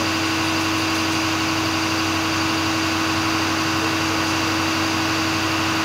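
Machinery running steadily: a constant hum with one strong, unwavering mid-pitched tone over an even hiss.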